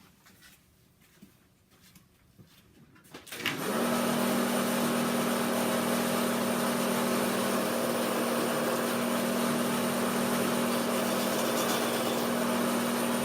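Low quiet for about three and a half seconds, then a bandsaw switches on and runs with a steady hum and hiss that does not change.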